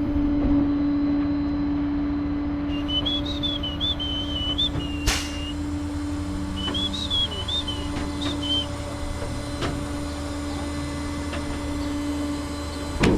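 Two short high warbling whistled phrases, the same tune twice, over the steady hum of an idling truck engine; a sharp click comes between the phrases and a knock near the end.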